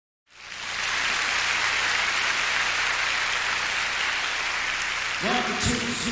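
Concert audience applauding steadily, fading in at the start. About five seconds in, a few instrument notes sound over the applause just before the song begins.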